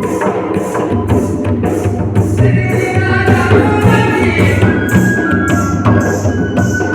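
Folk music rehearsal: a hand drum and jingling cymbals keep a steady beat of about two strokes a second. A pitched melody line comes in about two and a half seconds in.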